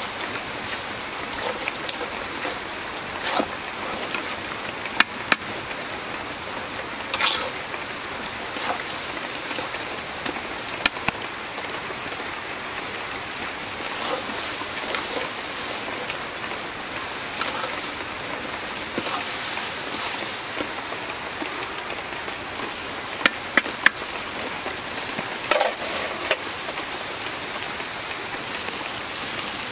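Hilsa fish and taro-leaf curry simmering and sizzling in a wok over a wood fire: a steady hiss with scattered sharp clicks and pops.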